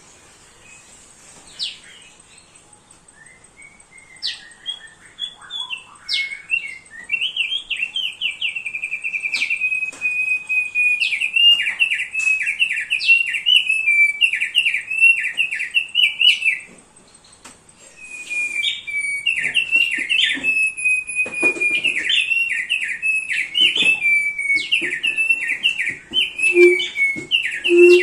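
Thick-billed white-eye (opior paruh tebal) singing: a few scattered chirps, then a fast, continuous chattering song that breaks off briefly about two-thirds of the way through and resumes.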